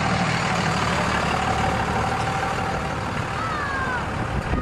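Union Pacific 844, a 4-8-4 steam locomotive, approaching with a steady, noisy rumble from its exhaust and running gear. A faint steady tone sits under it, and a few short falling chirps come in near the end.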